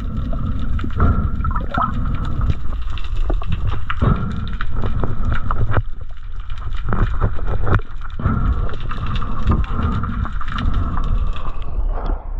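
Muffled underwater rumble with frequent knocks and gurgles from water and handling against a diver's camera housing, with a faint steady whine underneath. The sound thins out and drops in loudness near the end as the camera breaks the surface.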